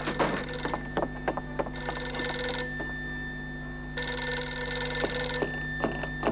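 Telephone bell ringing in two bursts: a short ring about two seconds in and a longer one about four seconds in.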